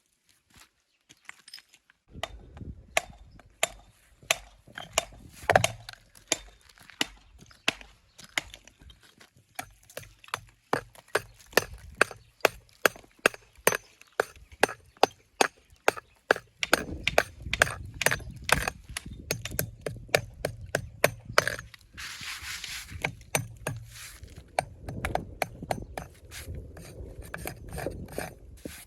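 A hammer striking stone in a steady run of sharp taps, about two a second, typical of dressing stone for a dry stone wall.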